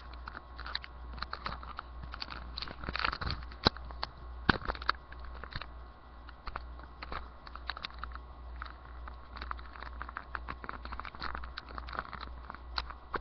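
Close handling noise: irregular clicks, taps and rustles of hands moving things near the microphone, over a steady low hum.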